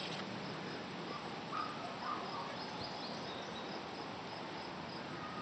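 Faint outdoor ambience: a steady hiss with a small, high chirp repeating about three times a second.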